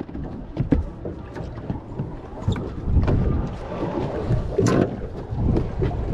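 Wind buffeting the microphone aboard a small fishing boat at sea, a rough low rumble with water and hull noise underneath and a few scattered knocks.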